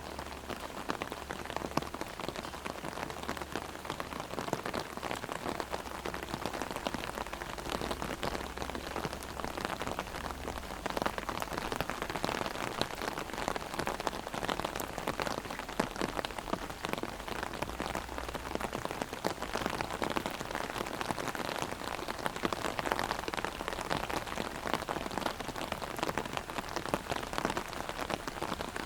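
Heavy rain drumming on an umbrella overhead, a dense steady patter of drops on the taut canopy.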